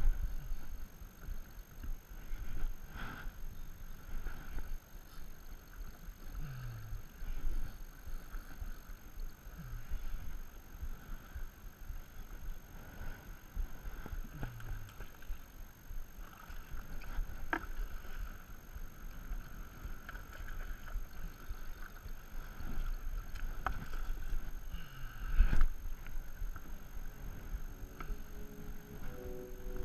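Choppy water lapping against a small boat's hull, with wind on the microphone and scattered knocks and clicks from fishing gear being handled. A heavy thump comes a few seconds before the end.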